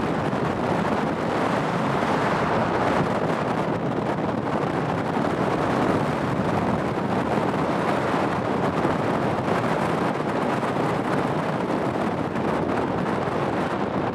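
Jet airliner engines heard from the airfield edge: a steady rushing noise with no clear whine, even in level throughout.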